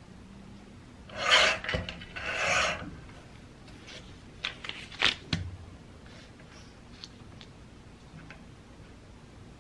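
Sliding paper trimmer's cutter head run along its rail twice, cutting through paper, each stroke lasting well under a second. A few short clicks follow a couple of seconds later.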